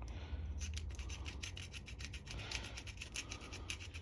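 Rapid, scratchy rubbing strokes, several a second, as a small cleaning tool scrapes in a Briggs & Stratton lawn mower carburetor's jet openings during a carb clean.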